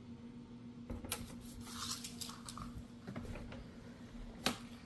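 Faint handling noises with a couple of sharp clicks, about a second in and near the end, over a steady low hum.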